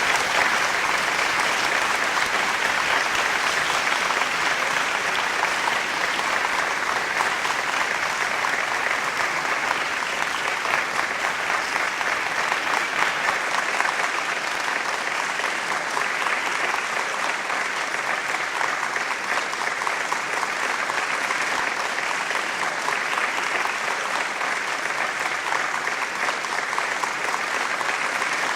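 A large crowd applauding steadily: many hands clapping in a dense, unbroken patter that holds at an even level throughout.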